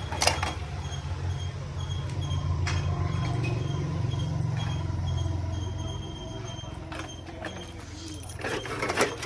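A low engine rumble, as of a motor vehicle going by, that swells a few seconds in and then fades. A few sharp metallic clicks or knocks sound over it, near the start and again near the end.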